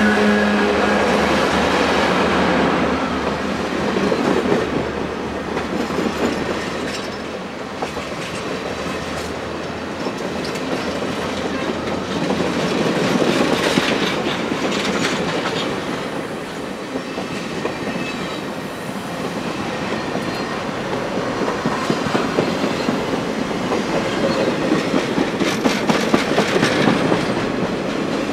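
Passenger cars of a CSX office-car train rolling past at speed: a steady rumble with the clatter of steel wheels over the rail joints. In the first second or two the engine drone of the lead locomotives fades out.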